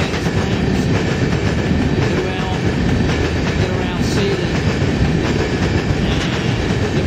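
Freight train of covered hopper cars rolling past close by: a steady, loud rumble of steel wheels on rail, with many quick wheel clicks over the rail joints.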